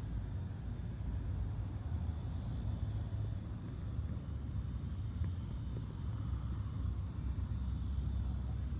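Steady low outdoor rumble with a faint high hiss underneath, and no distinct sound events.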